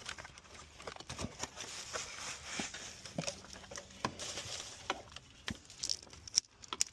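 Scattered light clicks, taps and rustling of hands handling the new oil filter while its rubber gasket is wiped with oil.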